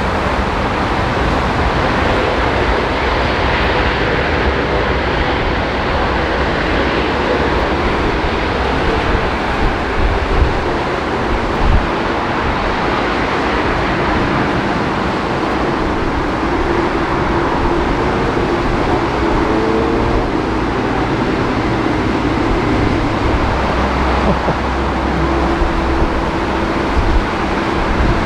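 Steady roar of heavy rain mixed with jet aircraft engines, with a faint engine tone drifting slightly in pitch.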